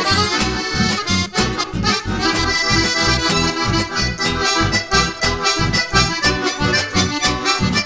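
Chamamé played on piano accordions over a strummed acoustic guitar: an instrumental passage with the accordions carrying the melody in held chords and the guitar keeping a steady rhythmic bass.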